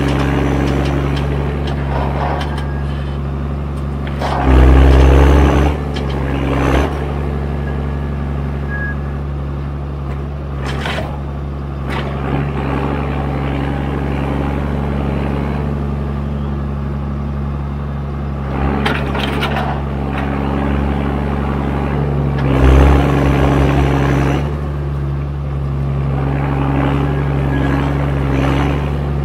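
The John Deere 1410D forwarder's 6.8-litre diesel engine runs steadily, in its older, loud pre-Eco3 form. It swells louder several times as the crane works, and there are two sharp knocks near the middle.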